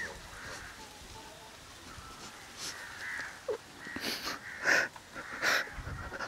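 A man crying quietly, with three sobbing breaths in the second half.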